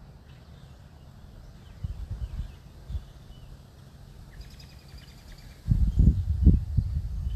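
Wind buffeting the microphone outdoors: a low rumble in a brief gust about two seconds in, then a stronger, steadier rumble for the last couple of seconds. Faint bird chirps are heard in between.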